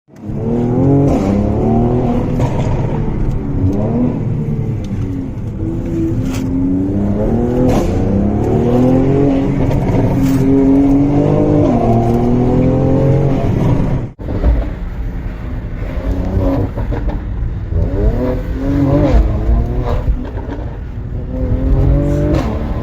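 2018 Mercedes-AMG C43's twin-turbo V6 exhaust: the engine revs, its pitch climbing and then dropping back again and again, with sharp exhaust pops and crackles scattered through. The sound breaks off briefly about two-thirds of the way in, then the revving resumes.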